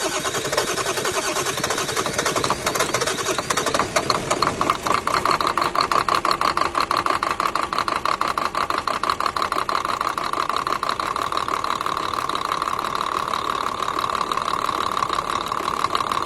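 A motor-driven machine running steadily with a fast, even clatter, and a steady hum that grows stronger about five seconds in.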